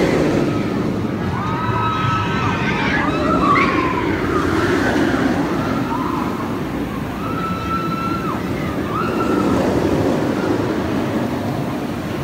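Incredible Hulk steel roller coaster train running along the track with a steady rumble, its riders screaming over it again and again in drawn-out, wavering screams.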